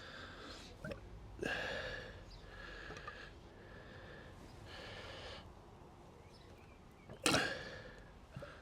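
Upturned plastic bottle of gear oil glugging as air bubbles back up through its filling spout while the oil drains into the gearbox fill hole: a few short gurgles a second or so apart, the loudest near the end.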